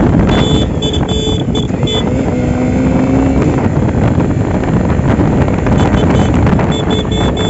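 Motorcycle riding along a road: wind buffeting the microphone over the running engine. Short high beeps come and go near the start and again near the end.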